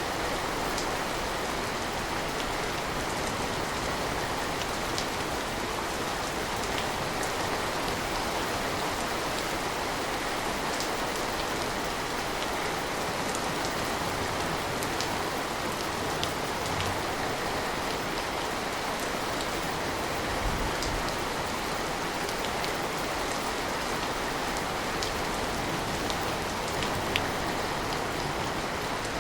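Steady rain falling, an even hiss with scattered single drips standing out now and then.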